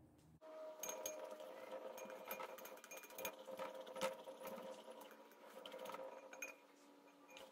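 Faint, irregular clicks and scrapes of a knife stirring glue-and-glitter slime in a glass bowl, metal tapping on glass, as boric-acid water is mixed in.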